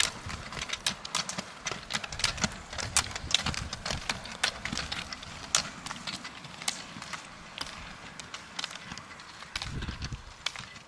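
Roller-ski pole tips clicking on asphalt in quick, irregular strikes as several skate-technique roller skiers push past, over a low rumble that swells briefly near the end.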